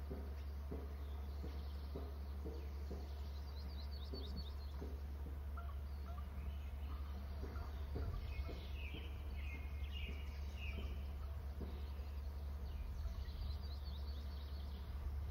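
Small birds chirping in short phrases a few times, about four seconds in, again from about eight to eleven seconds, and near the end, over a steady low hum and scattered faint ticks from an outdoor camera microphone.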